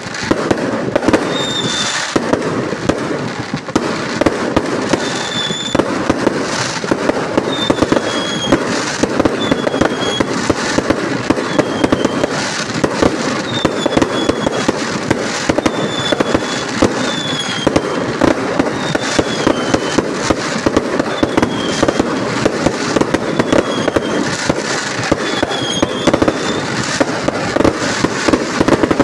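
Dense, unbroken barrage of fireworks and firecrackers, a rapid crackle of bangs with no pause. Short falling whistles come through about once a second.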